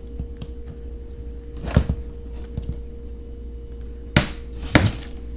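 A few sharp knocks from handling the packaging of a boxed outboard motor: one about two seconds in and a louder pair near the end, over a steady low hum.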